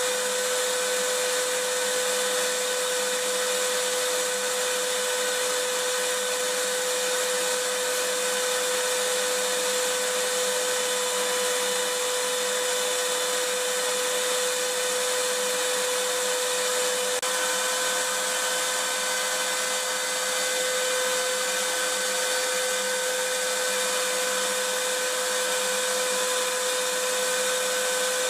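Vacuum cleaner running continuously: a steady, even hiss of rushing air with a constant motor whine.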